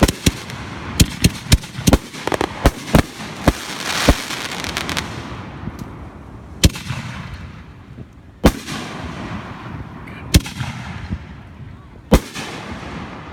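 Consumer fireworks going off: a quick run of sharp bangs and crackles over the first few seconds, then single loud bangs about every two seconds, each trailing off in a short echo.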